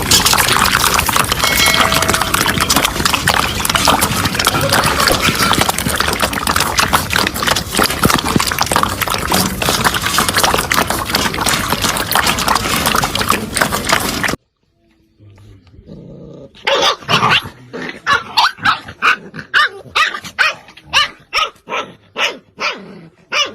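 A dense, continuous noisy clatter for most of the time, cut off suddenly; then, after a short silence, a dog barks over and over, about two barks a second.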